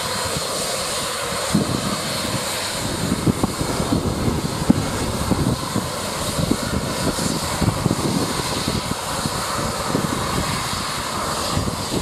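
Cessna Citation Excel's twin Pratt & Whitney PW500-series turbofans running at low taxi power: a steady jet hiss and whine, with irregular low rumbles underneath.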